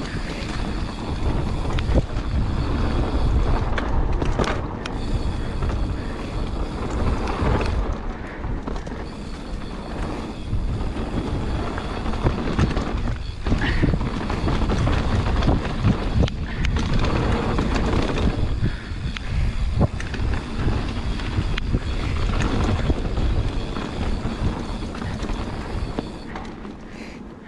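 Mountain bike descending a dirt trail at speed: tyres rolling over the dirt and wind buffeting the microphone, with frequent sharp clicks and rattles from the bike over bumps. The loudness swells and eases with the speed.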